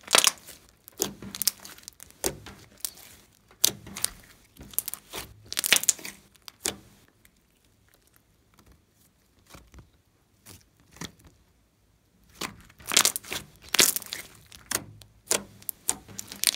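Thick pink slime squeezed and kneaded by hand, giving irregular sticky crackles and pops. It goes quiet for a few seconds in the middle while the slime is stretched out, and the crackling picks up again near the end as it is squeezed once more.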